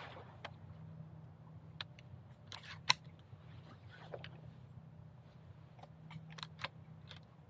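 Scattered faint clicks and light knocks, the sharpest about three seconds in, over a low steady hum.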